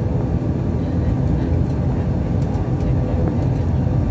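ATR 42-600's turboprop engines and propellers running at low power while the plane taxis, a steady drone heard from inside the cabin.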